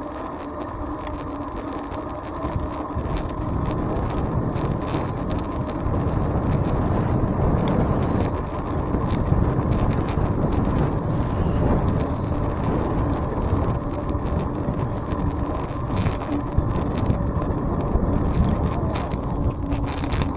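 Wind rushing over the microphone during a bicycle ride, mixed with road noise and frequent small clicks and rattles. It gets louder about three seconds in.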